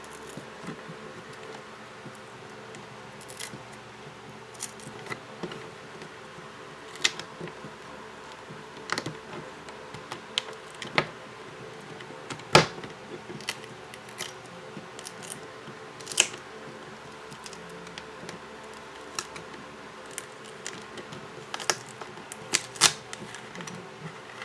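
Irregular clicks and taps, with faint scraping, as a plastic pry tool works the adhesive-glued back cover off a Sony Xperia XA1 Ultra phone. The loudest click comes about halfway through, with a cluster near the end.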